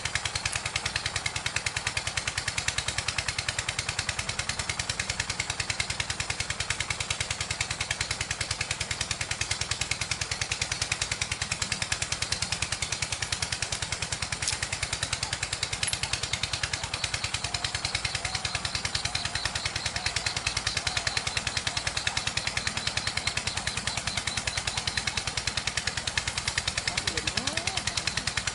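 Small motorcycle engine running steadily while being ridden, its rapid even firing pulses continuous throughout.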